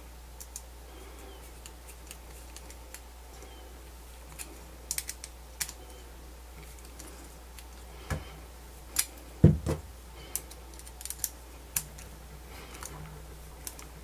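Irregular small clicks and ticks of a thin screwdriver turning a small metal screw into a hole in a 3D-printed plastic battery adapter, with a louder knock about two-thirds of the way through.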